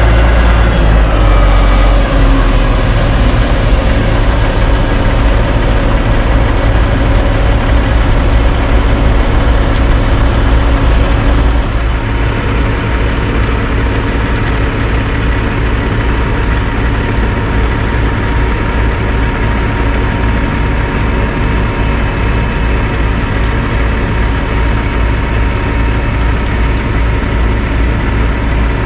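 Heavy diesel engines of a Kenworth dump truck and a CAT asphalt paver running steadily while the truck's raised box feeds the paver. The sound drops a little in level about twelve seconds in.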